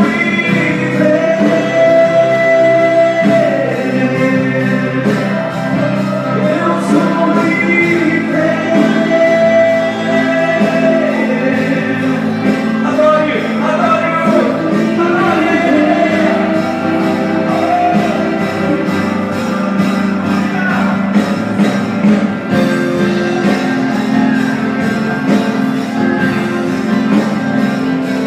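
Live church worship music: sung melody with long held notes over a backing band.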